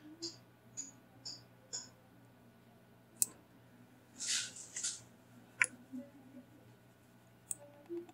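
Computer mouse and keyboard clicks, single sharp clicks scattered a second or so apart, over a faint steady low hum.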